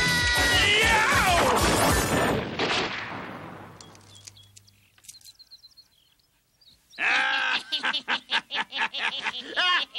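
Cartoon soundtrack music with a falling pitch glide in the first two seconds, fading almost to silence by about four seconds in. About seven seconds in, a loud, fast warbling figure starts.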